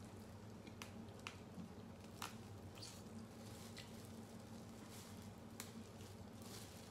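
Faint wet squishing and a few sharp cracks of boiled seafood shell being pulled apart and peeled with plastic-gloved hands, over a low steady hum.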